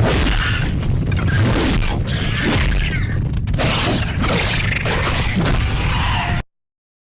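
Velociraptor pack sound effects: several screeching calls that glide up and down over heavy low rumbling and crashing impacts. The sound cuts off suddenly about six seconds in.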